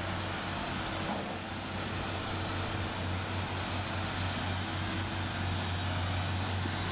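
Track renewal train's engine and machinery running: a steady low hum with broad mechanical noise over it.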